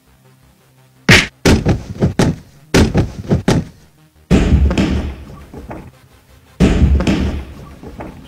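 A quick run of about seven sharp slapping hits as two young martial arts students trade hand strikes and blocks. Then two heavy, deep booming thuds, each ringing on for about two seconds.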